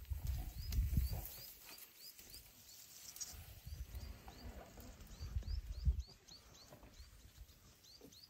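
African bull elephant feeding close by, its trunk pulling and tearing grass and leafy plants, with low rumbling noise in two stretches, loudest about a second in and about six seconds in. A small bird repeats a short rising chirp about twice a second.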